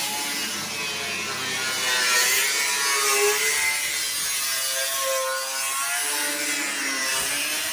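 Power tool cutting into sheet metal, a grating hiss with a whine that dips and rises in pitch as the cut loads it.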